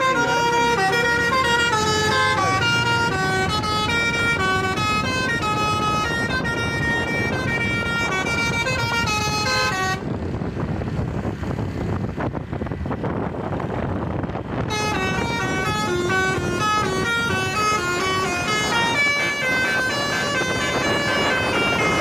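Basuri telolet bus horns playing a fast, reedy tune, the notes changing several times a second. About ten seconds in the horn stops for roughly five seconds, leaving vehicle noise, then a tune starts again.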